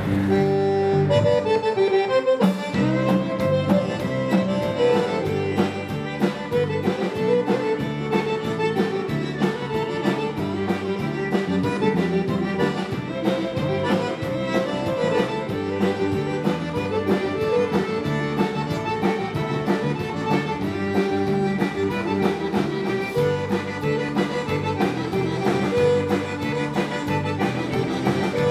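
Cajun band music led by a diatonic button accordion, with a steady drum beat underneath.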